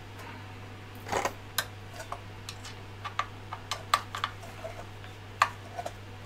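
Irregular small clicks and ticks from a hex screwdriver working the power-supply mounting screws of a Prusa i3 MK3S kit during final tightening, over a steady low hum.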